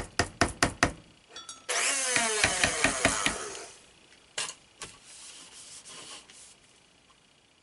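A stick blender tapped about seven times in quick succession against a mixing bowl, followed by about two seconds of harsh scraping noise, then two knocks as it is set down.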